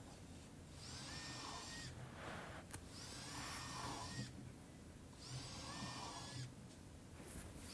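Electric drill boring holes in a poplar board, running in three short bursts of about a second each; each winds up to a steady whine and then stops. A single sharp click falls between the first and second bursts.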